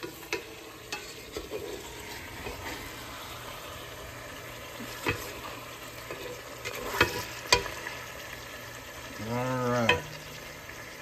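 Thick-cut bacon sizzling steadily as it fries in its own rendered fat in a nonstick stock pot while a wooden spatula stirs it, with a few sharp knocks of the spatula against the pot, the loudest about seven and a half seconds in.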